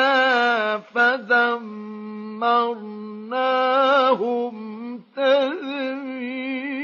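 A male Quran reciter chants in the melodic mujawwad style. He holds long ornamented notes with a wavering pitch, separated by short breaths between phrases.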